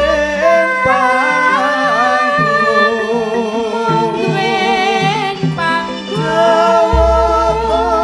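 A sinden (female Javanese singer) singing a wavering, ornamented melody with karawitan gamelan accompaniment. A deep low note enters about seven seconds in.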